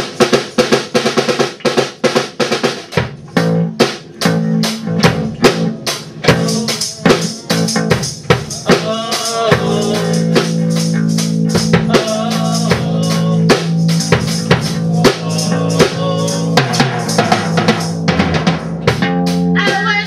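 Rock band jamming: a Pearl drum kit played with fast, continuous hits, joined about three seconds in by a held low guitar note.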